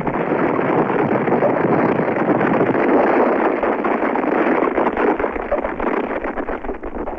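A steady, loud rushing noise like a storm wind, dying away near the end.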